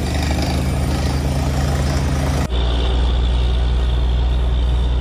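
Heavy engines of a borewell drilling rig and its truck-mounted Doosan air compressor running steadily. About halfway through the sound cuts to a deeper, slightly louder engine drone with a steady high whine over it.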